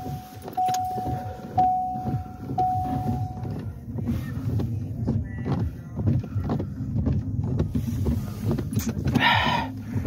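A car's reverse warning beep, one steady tone repeating about once a second for the first three seconds or so, then stopping. Under it the car's engine runs with a low rumble as the car tries to move through deep snow.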